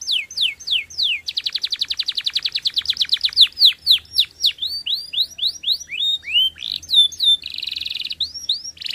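Domestic canary singing: runs of quick downward-sweeping whistled notes, a very fast trill, and a buzzing roll near the end.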